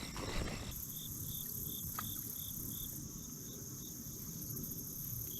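Crickets and other insects chirping: a steady high trill that comes in suddenly under a second in, with a separate chirp repeating about two to three times a second. A single faint click sounds about two seconds in.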